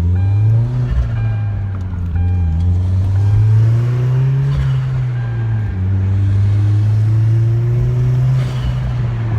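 Turbocharged 2.0-litre four-cylinder of a Hyundai Genesis Coupe heard from inside the cabin, pulling and then easing off, its pitch rising to a peak about halfway and settling again. Short hissing whooshes come about halfway and near the end as the HKS blow-off valve vents on lift-off.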